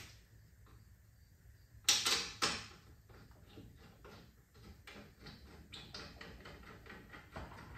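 Metal knocks and clicks from a rear brake caliper and bracket being fitted by hand over the rotor. There are two sharp clanks about two seconds in, then a run of light clicks.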